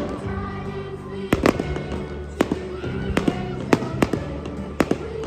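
Fireworks bursting in an aerial display: about eight sharp bangs at irregular intervals, over music playing underneath.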